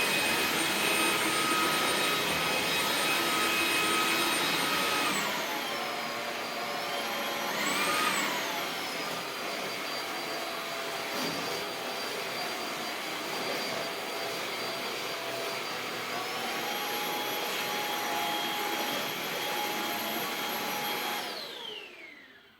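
Eufy HomeVac S11 Reach cordless stick vacuum running with a steady high whine. Its pitch drops about five seconds in and swings briefly up and back down a few seconds later. Near the end the motor winds down to silence as it is switched off.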